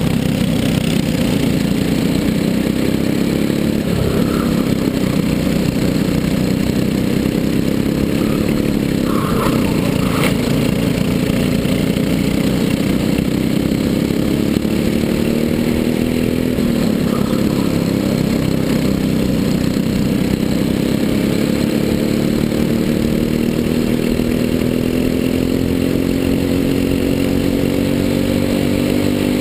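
Briggs & Stratton LO206 single-cylinder four-stroke kart engine at racing speed, heard close up. Its pitch drops and picks up again a few times as the kart brakes for corners and accelerates out. Over roughly the last twelve seconds it climbs steadily as the kart accelerates down a straight.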